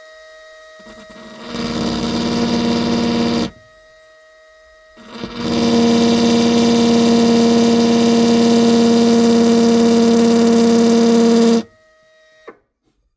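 Right-angle drill running against windshield glass, stop-drilling the end of a crack: two runs, a short one and then a longer one of about six seconds, each spinning up quickly and cutting off suddenly, with a steady whine.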